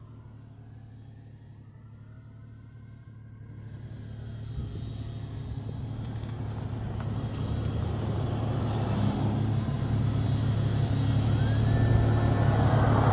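Fire truck's diesel engine rumbling, growing steadily louder as it approaches. A faint siren wails in the first few seconds.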